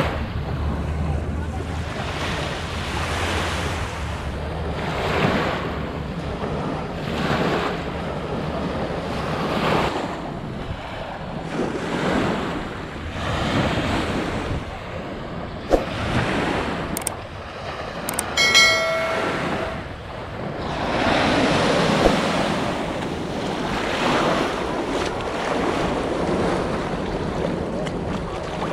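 Surf washing in swells that rise and fall every two seconds or so, with wind buffeting the microphone. A few sharp clicks and a brief high-pitched tone come about two-thirds of the way through.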